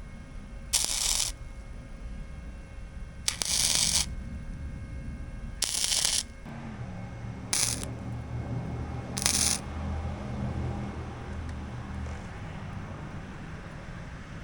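Wire-feed (MIG) welder tack-welding a sheet-metal patch into a rusted car roof: five short bursts of crackling arc, each about half a second long. A low steady hum comes in about halfway through.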